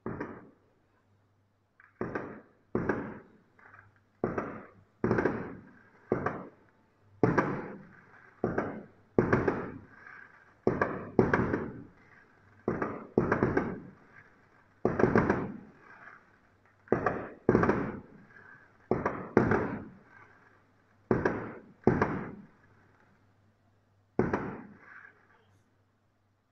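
Aerial fireworks bursting overhead: about two dozen sharp booms, each trailing off in an echo, coming roughly once a second and often in close pairs, then stopping shortly before the end.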